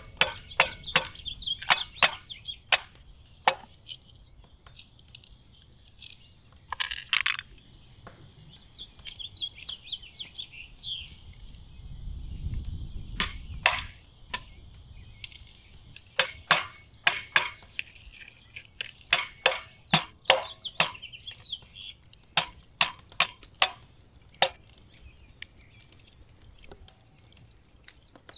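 Walnut shells cracking: a stone knocks walnuts against a wooden cutting board and the shells snap apart by hand, in sharp irregular cracks and knocks. Birds chirp steadily in the background.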